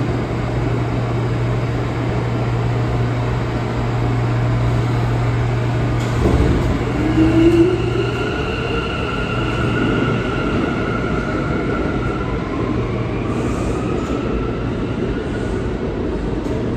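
New York City subway train's electric propulsion starting up as it pulls out of the station. About six seconds in, a steady low hum gives way to a louder surge with a short rising tone, then a high whine that holds for a few seconds and fades out.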